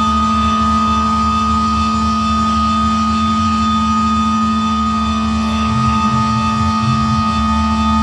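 Live electronic noise music: a loud, unchanging drone of stacked steady tones, a low hum and a high whine held together, over a flickering low rumble that comes and goes around six to seven seconds in.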